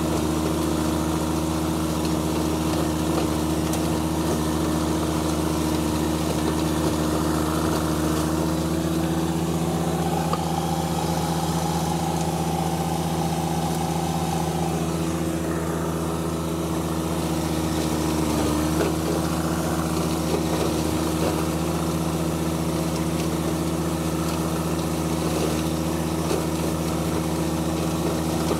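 John Deere 1025R compact tractor's three-cylinder diesel running steadily, driving a rear PTO flail mower through standing dry corn stalks.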